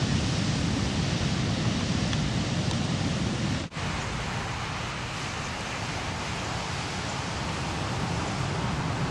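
Ocean surf breaking in a steady wash of noise. It cuts out for an instant just before four seconds in and carries on slightly quieter.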